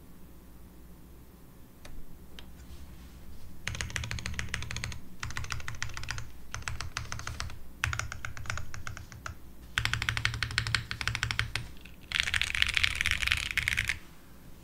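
Typing on a Qwertykeys Neo80 mechanical keyboard with unlubed Gateron Kangaroo Ink tactile switches, a POM plate and PBT keycaps. There are a few lone keypresses, then from about four seconds in, runs of fast typing broken by short pauses, ending in a louder, denser burst.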